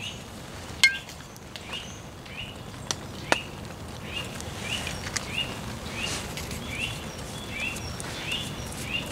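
A bird calling over and over, one short chirp about twice a second, over a steady patter of rain. A few sharp clicks or knocks come in the first few seconds, the loudest about a second in.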